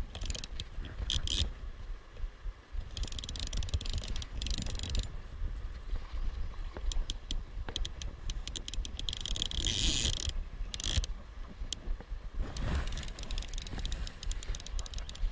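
Fly reel's click-and-pawl drag ratcheting in several short bursts, from a few quick clicks up to runs of about two seconds, while a hooked fish is played on a bent rod. A steady low rumble runs underneath.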